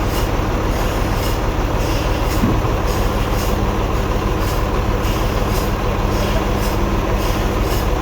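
Sawmill machinery running steadily: a heavy engine-like drone with a rhythmic hiss about twice a second. A low steady hum sets in about a third of the way in.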